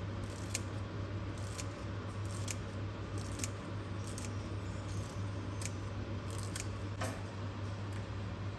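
About a dozen light, sharp clicks or snips at irregular intervals, over a steady low hum.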